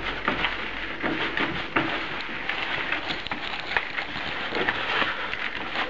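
Hands kneading moist groundbait of sweetcorn and canned fish in a plastic bucket: irregular rustling and squishing with small knocks.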